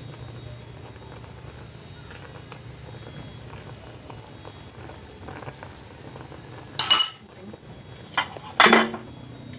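Metal ladle scraping and clinking in an aluminium cooking pot of simmering fish broth over a steady low hum. Two loud, sharp metallic clanks come near the end.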